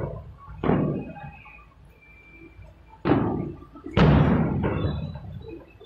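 Fireworks shells bursting at a distance: four sharp booms, the loudest about four seconds in, each fading in a rumbling echo.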